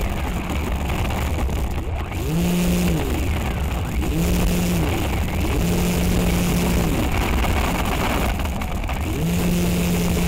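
Onboard sound of a small electric FPV model airplane in low flight: a steady rush of wind and hiss, with the motor and propeller whine rising, holding and dropping again four times as the throttle is pushed up and eased off.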